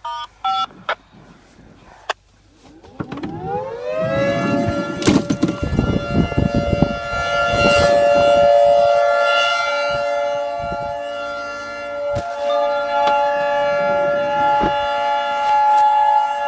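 Outdoor civil-defense warning siren winding up about three seconds in, its pitch rising over a second or two to a steady tone, which it then holds. A second, higher tone joins near the end. A few short electronic beeps come just before it starts.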